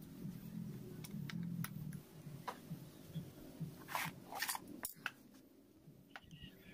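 Light clicks and scrapes of small metal parts as a chainsaw carburetor is taken apart by hand, over a faint low hum. The handling clicks come loudest about four to five seconds in.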